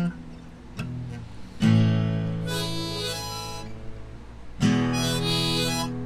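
Harmonica played over strummed acoustic guitar: a few chords struck, each left to ring, with harmonica notes held over them.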